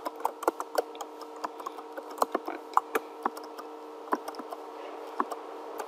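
Computer keyboard keys tapped in quick, irregular strokes as code is edited and reformatted, over a faint steady hum.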